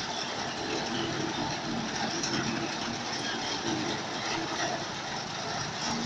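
Walk-behind self-propelled reaper's small engine running steadily as the machine is driven and turned.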